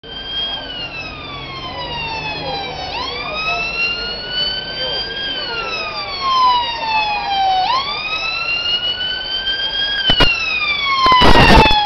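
London ambulance siren in wail mode, its pitch sweeping slowly up and down about every five seconds and growing louder as the ambulance approaches through traffic. It becomes much louder near the end.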